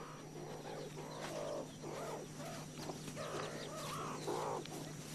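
Meerkats giving a run of short, repeated calls.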